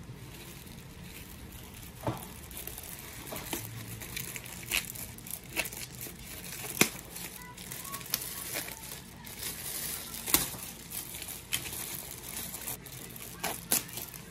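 Hands crinkling and tearing a thin black plastic mailer bag wrapped around bubble wrap, with irregular sharp crackles and a couple of louder snaps about seven and ten seconds in.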